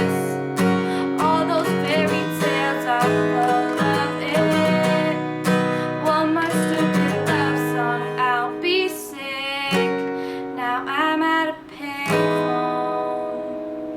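Acoustic guitar strummed under a woman's singing, closing on a final chord about twelve seconds in that rings out and fades.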